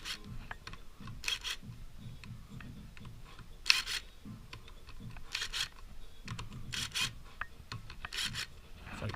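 Hand ratchet being worked on the clutch spring bolts of a Yamaha XJ600 engine: a short burst of ratcheting clicks about every one and a half seconds as the handle swings back, with light handling and rubbing of tools and parts between.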